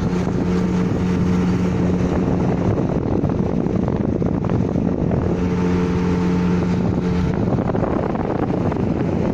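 Engine of a long wooden river motorboat running steadily under way, with wind buffeting the microphone throughout. The engine's steady hum stands out for a couple of seconds at the start and again past the middle.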